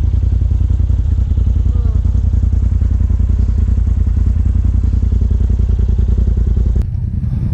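Side-by-side UTV engine running at low revs as the machine crawls along a rutted trail: a steady, loud, low drone with a fast pulse. It cuts abruptly to a slightly quieter engine sound near the end.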